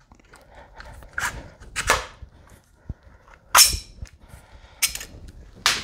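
Sharp clicks and knocks as a roof-rack end mount is slid onto its crossbar and the bar is handled and set down, about five in all, the loudest a little past halfway.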